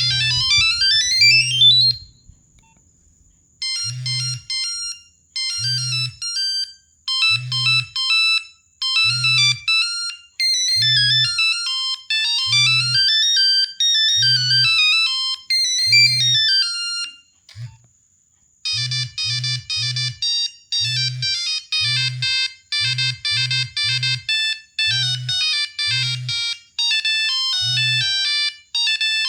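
Nokia 1100 monophonic ringtones playing: a beeping melody of rapid notes in short phrases, with a low buzz pulsing along with them. The tune stops about 18 seconds in, and after a brief pause a second, faster ringtone starts.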